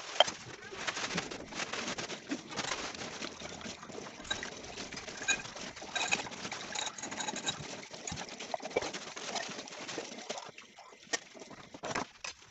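Kitchen tap running into a sink while a glass is rinsed under it, with dishes and utensils clinking; the water stops about ten seconds in, leaving scattered clinks of dishes.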